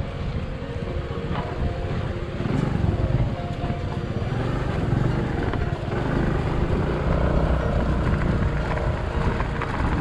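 Honda Activa scooter's single-cylinder four-stroke engine running steadily while riding over a bumpy dirt road, with wind rumbling on the microphone.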